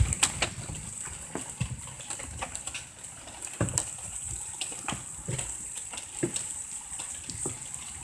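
Light rain easing after a hailstorm: a steady hiss with irregular drops tapping close by, about two a second.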